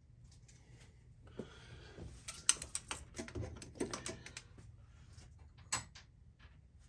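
Hands working on a Volkswagen Golf Mk2's distributor and its wiring connector: a scatter of light plastic and metal clicks and rattles, busiest in the middle, with one more click near the end.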